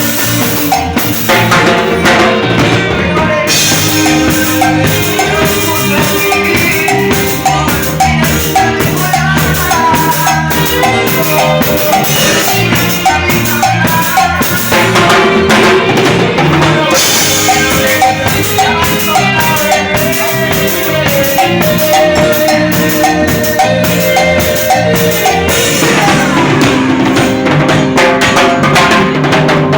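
Cumbia band playing, with a drum kit and percussion driving a steady beat under a melodic line.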